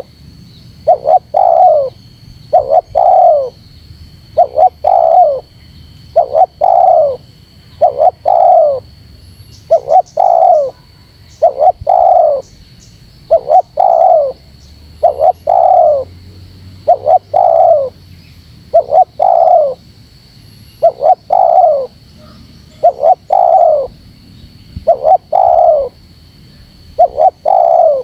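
Spotted dove cooing over and over, a phrase about every second and a half to two seconds: one or two short notes followed by a longer coo that falls in pitch.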